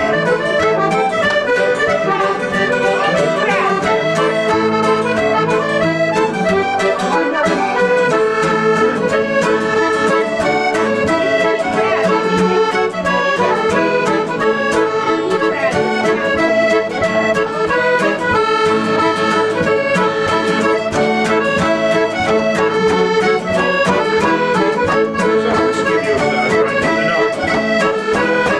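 Accordion playing a traditional tune: a steady stream of quick melody notes over held lower notes.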